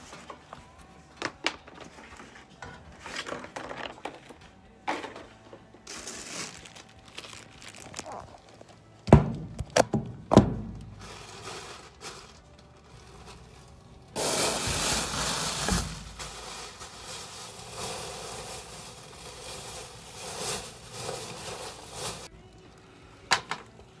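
Belongings being handled at a metal locker. Several loud knocks and thumps come about nine to ten seconds in. A long stretch of rustling and crinkling follows, loudest for a couple of seconds, then softer, and a single click comes near the end.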